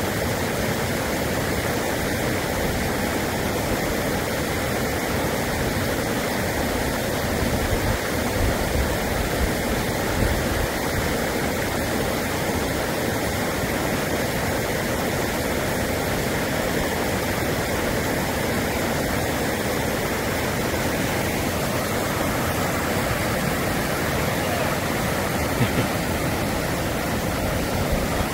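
Steady rush of running water, like a fast mountain stream or waterfall, even and unbroken throughout.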